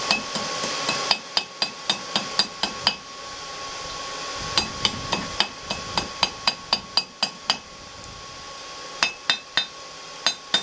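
Hand hammer striking hot steel on an anvil in runs of quick ringing blows, about three a second, with two short pauses between runs. The blows are bending and evening out the two forked tines of a wrought cooking iron.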